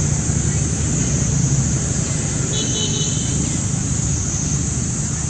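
Steady outdoor background noise: a low rumble with a high, slowly wavering hiss over it, and a short high-pitched chirp about two and a half seconds in.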